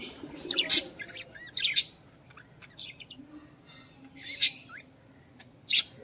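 Pet budgerigars chirping and squawking in short, sharp, high calls, about four of them loud, with quieter chirps between.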